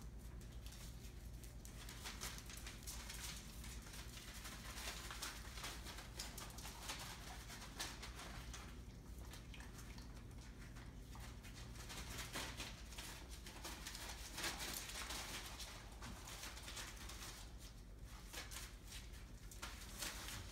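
Entlebucher puppies' paws and claws pattering and scrabbling on a hard floor, many small irregular clicks and taps.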